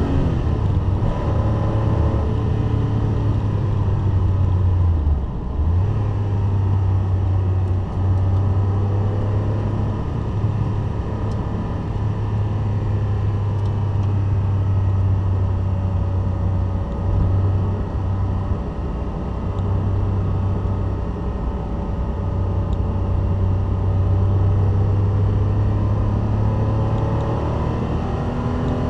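Classic Porsche 911 flat-six engine running hard on a race track, heard from inside the cabin. Its steady note breaks briefly a few times, at gear changes.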